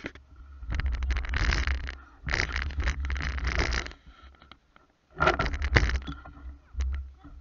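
Stunt scooter wheels rolling over rough asphalt: three stretches of gritty, scraping rumble with short pauses between.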